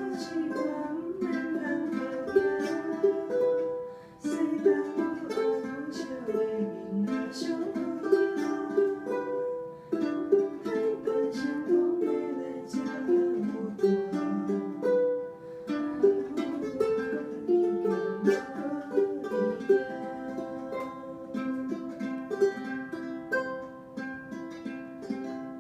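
Two ukuleles played together, strummed chords under a plucked melody line, in a small room. Near the end the playing settles on a final chord that rings and fades out.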